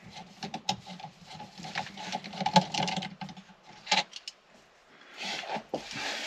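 A screwdriver backing out small screws from the steering-column housing: a run of irregular clicks and ticks for about four seconds, with one sharp click about two and a half seconds in, then a soft rustle near the end.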